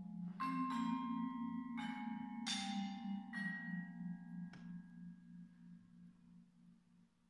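Mallet percussion music: about six separate struck notes on keyboard percussion that ring on, over a low pulsing sustained tone, the whole sound dying away toward the end.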